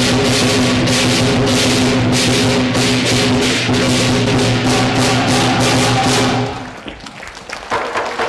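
Chinese lion dance percussion, with drum, gong and clashing cymbals beating a fast steady rhythm of several crashes a second. It breaks off about six and a half seconds in, leaving a short lull with a few scattered hits.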